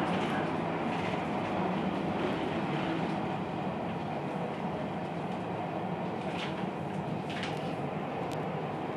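Funicular car running on its rails in a tunnel, heard from inside the car as a steady rumble, with three brief sharp clicks in the last few seconds.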